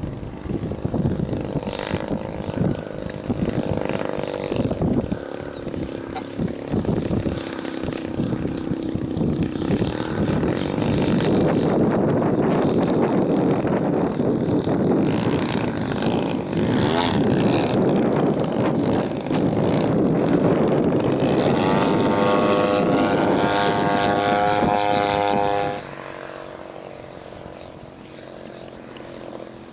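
1/3-scale Piper Super Cub radio-controlled model airplane's engine and propeller running through aerobatic passes, with strong wind buffeting the microphone. Toward the end the engine note climbs in pitch, then the loud sound drops away sharply.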